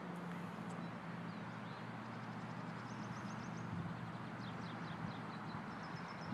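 Songbirds chirping and trilling in quick high bursts, several runs scattered through, over a faint steady low hum.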